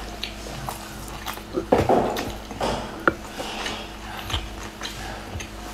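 Close mouth sounds of a person eating a large dumpling: wet chewing and lip smacks with scattered sharp clicks, and a louder burst of noise about two seconds in.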